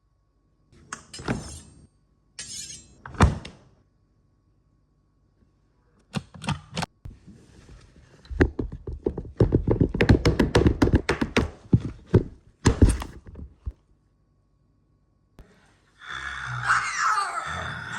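A series of knocks and thuds. A few separate hits come in the first three seconds, the loudest a sharp one about three seconds in, then a quick run of many taps in the middle. A sustained noisy sound starts near the end.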